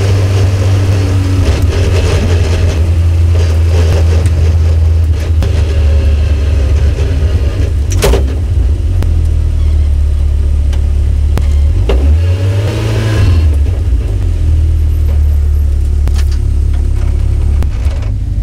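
Caterham CSR 260's four-cylinder engine running at low revs and dropping to idle as the car rolls slowly to a stop. There is one short rising rev about two-thirds through and a couple of sharp knocks.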